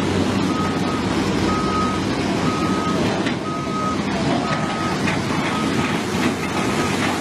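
A vehicle's reversing alarm beeping about once a second, a single steady tone, over the rush of a fast white-water river and a diesel engine running.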